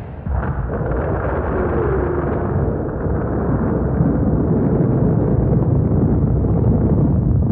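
Explosion sound effect: a sustained low rumble that keeps going after a sudden start, with no melody over it.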